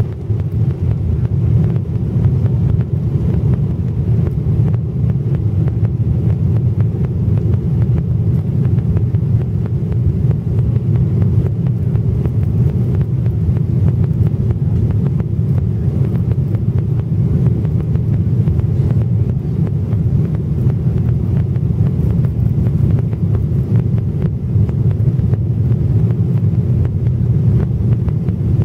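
Cabin noise of a Boeing 777-300ER climbing out after takeoff: a loud, steady low rumble from its GE90-115B engines at climb thrust and the rushing airflow.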